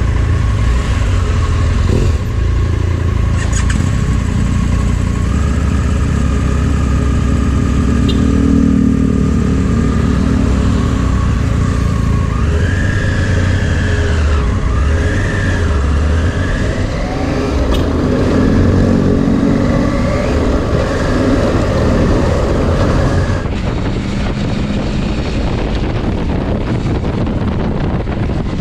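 Motorcycle under way on the road, its engine running with a steady low rumble; about halfway through the engine's pitch rises and falls a few times.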